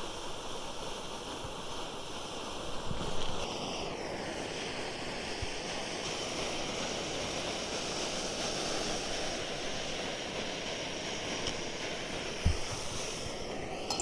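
Primus Express Spider II gas stove burner running with a steady, loud hiss while heating water. Its sound shifts a few seconds in, and there is a single low knock near the end.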